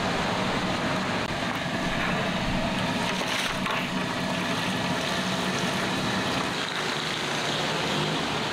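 Steady, continuous machine-like running noise with a low hum underneath.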